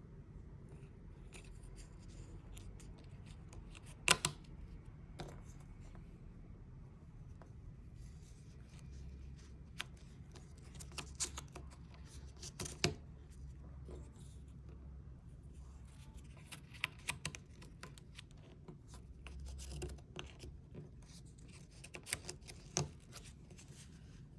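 Puzzle pieces being handled and fitted together on a table: scattered light clicks, taps and scratching, with a couple of sharper knocks about four seconds in and again near the middle.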